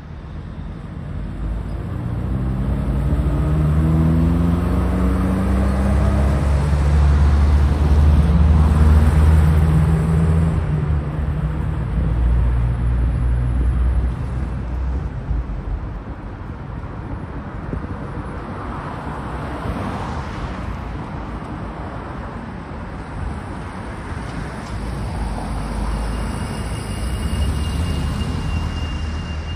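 Street traffic with a motor vehicle's engine passing close by. Its pitch rises as it accelerates over the first few seconds, it is loudest about eight to ten seconds in, and it then eases into a steady traffic hum.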